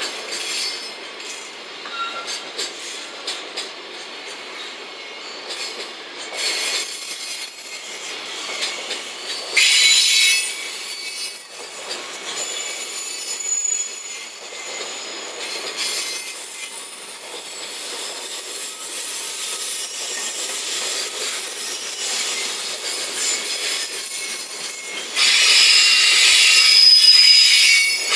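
Container flatcars of a 23-car freight train rolling past: a continuous rumble and clatter of steel wheels on the rails. High-pitched squeals from the running gear break in briefly about ten seconds in, and again, louder, over the last few seconds.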